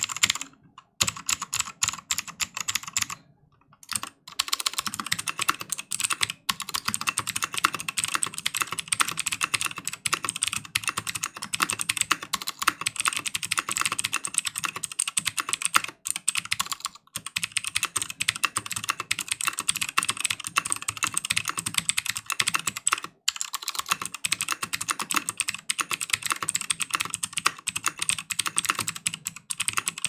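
Continuous fast typing on a Helix Lab Aaru aluminium TKL custom keyboard with stock Helix Skylar clicky switches, an aluminium plate, no foam and DCS keycaps: a dense stream of sharp key clicks. There are short pauses about a second and three seconds in.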